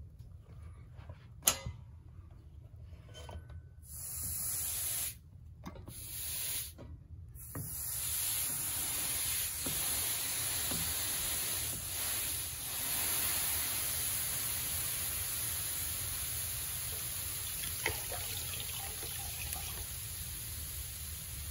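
A hot carpet seaming iron being handled and set down on a towel over a carpet seam, with a sharp knock about a second and a half in. It then rests there over the hot-melt seam tape with a steady hiss.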